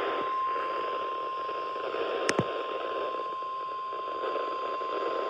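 NOAA Weather Radio warning alarm tone played through a Midland WR300 weather radio: a single steady high tone under static hiss from weak reception, with one sharp crackle a little over two seconds in. It is the attention signal that opens a tornado warning broadcast.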